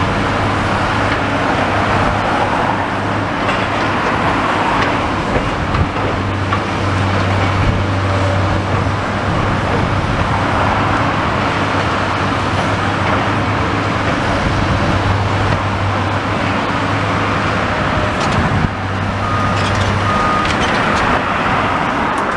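Steady road traffic noise with a low, steady engine drone that stops about two seconds before the end. A few short high beeps sound near the end.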